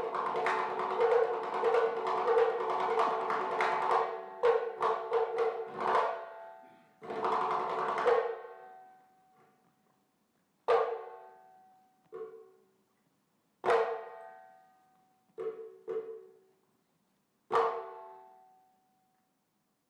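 Background music with percussion that thins out after about six seconds into a handful of single struck notes, each ringing and fading away, spaced a second or two apart.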